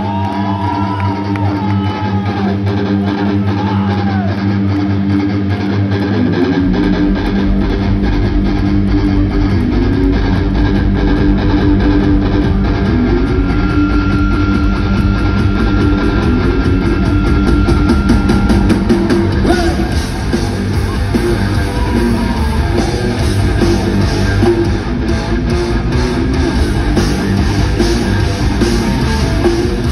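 Live rock band playing an instrumental passage led by guitars, with no vocals. About six and a half seconds in, a deep bass and drum low end comes in and the music carries on fuller.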